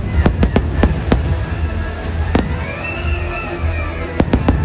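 Fireworks bursting in sharp cracks: a quick flurry of several in the first second, a single one about halfway, and another quick cluster near the end, over loud show music.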